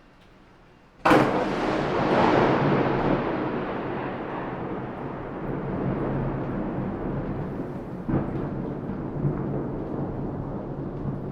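Thunder: a sudden sharp crack about a second in that rolls on into a long rumble, with a second, smaller rumble swelling up near the end.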